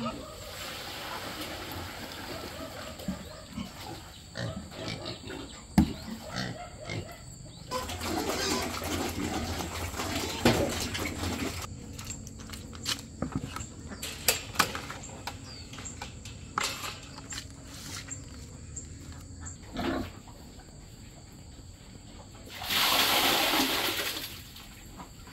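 Pigs grunting in their pen amid scattered knocks and clatter of buckets, and near the end about a second and a half of liquid pouring and splashing into the pen.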